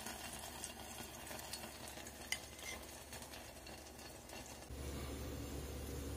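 Faint sizzle of hot oil in a small pot after frying a codeguim sausage, with a sharp click about two seconds in. A low steady hum comes in near the end.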